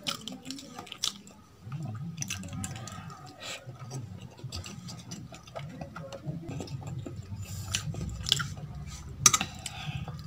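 Close-up eating sounds: chewing a mouthful of rice and rajma, with fingers gathering rice on a stainless steel plate making small clicks and scrapes. The sharpest click comes about nine seconds in.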